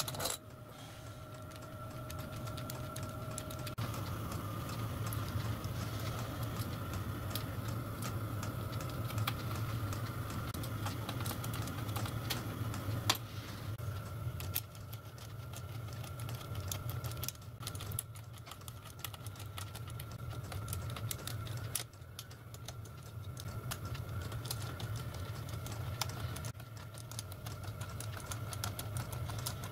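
Small metal parts clicking and tapping on a workbench in irregular light ticks, over a steady low hum.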